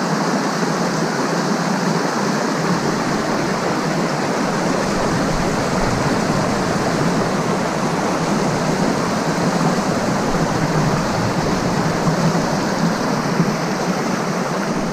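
Mountain creek rushing over rocks in small cascades, a steady churning of white water.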